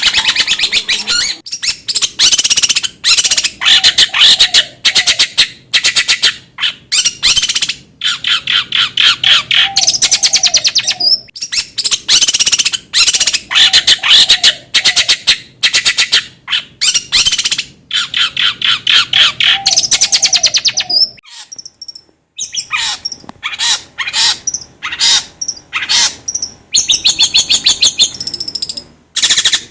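Long-tailed shrike (cendet) singing a long run of loud, rapid, harsh chattering phrases, broken by a short pause about 22 seconds in.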